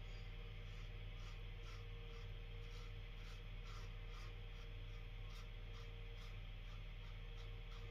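Pearl slant safety razor scraping through lathered stubble in short, quick strokes, about two or three a second, on the final pass of a wet shave.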